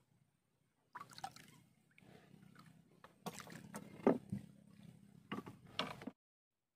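Water splashing and sloshing around a small wooden sampan as it is paddled, with several sharp knocks, starting about a second in and cutting off suddenly near the end.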